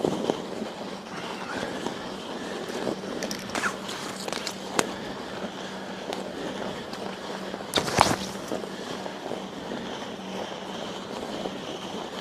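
A mountain bike moving over crusted snow: a steady crunching hiss with scattered sharp clicks, and a louder brief burst about eight seconds in.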